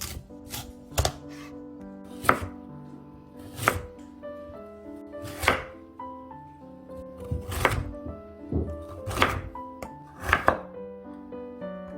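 Kitchen knife chopping ingredients on a cutting board, one loud stroke every one to two seconds with a few lighter taps between, over background music.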